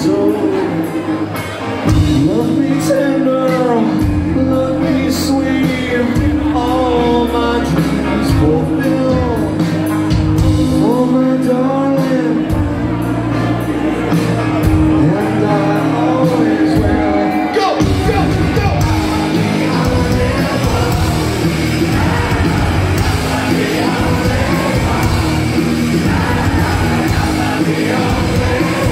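Live rock band with a singer, recorded from within the concert crowd. About 18 seconds in, the sound turns denser and noisier as the band plays harder.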